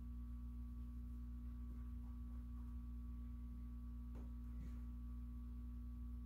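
Steady electrical hum, a low drone with a fainter high tone above it, holding an even level. A few faint soft ticks come through, one around two seconds in and two about four seconds in.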